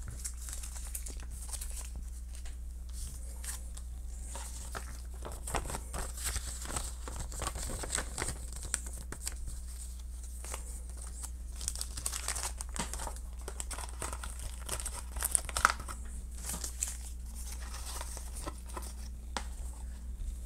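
Packaging wrappers and cleaning-wipe packets crinkling and rustling as they are handled and gathered up, in irregular bursts with small clicks, over a steady low hum.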